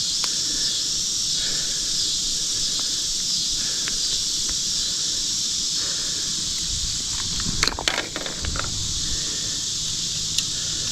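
Steady, high-pitched chorus of insects, crickets or similar, shrilling without a break. About three-quarters of the way through, a short burst of clicks and rustling breaks in.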